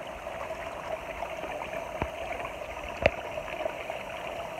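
Seawater trickling and splashing steadily from pipe outlets into abalone tanks, with two short sharp clicks about two and three seconds in.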